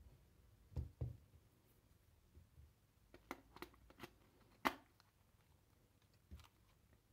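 Light knocks and clicks from handling angle grinder parts: the motor and metal gear head being set into a hard plastic handle half-shell. Two dull thumps about a second in, then a handful of sharp clicks a little past the middle, one louder than the rest, and a last low knock near the end.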